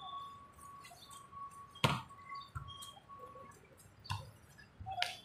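A volleyball being struck by players' hands during a rally, giving sharp slaps. The loudest comes about two seconds in and two weaker ones near the end, with a faint steady high tone in the first few seconds.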